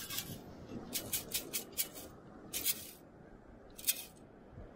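Sand hissing and scraping in a beach sand scoop as it is dug and shaken to sift out a target: a quick run of short scrapes about a second in, then single ones near the middle and near the end.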